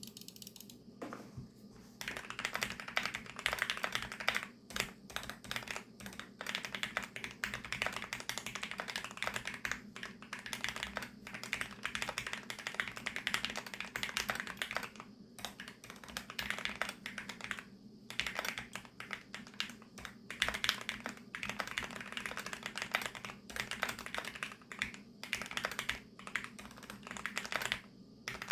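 Typing on a VARO V68+ mechanical keyboard with VARO Panda linear switches lubricated with Krytox 205: a dense, uneven run of keystroke clacks with short pauses, starting in earnest about two seconds in.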